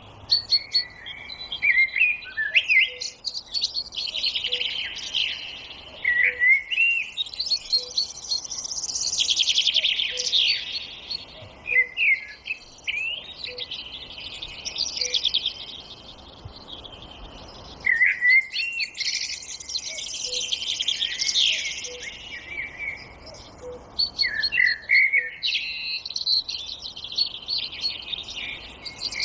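Chorus of several songbirds singing at once in woodland: overlapping trills, warbles and quick chirps, with a faint low note repeating about every second and a half underneath.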